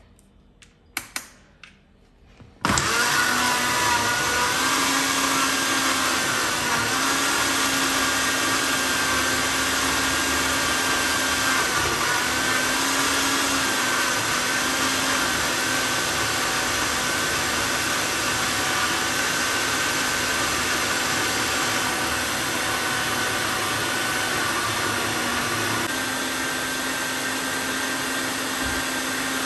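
Countertop blender with a glass jug blending fruit and milk into a smoothie. A few light clicks, then the motor starts abruptly about three seconds in and runs steadily with a slightly wavering whine. Near the end the whine steps a little higher and the sound gets a little quieter.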